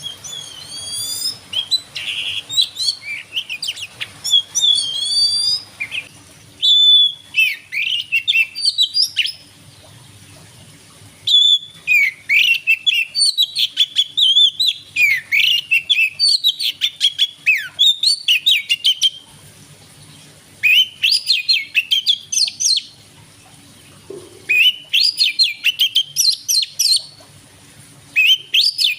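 Oriental magpie-robin singing: rapid phrases of varied, high-pitched whistles and chirps, each phrase a few seconds long and separated by brief pauses.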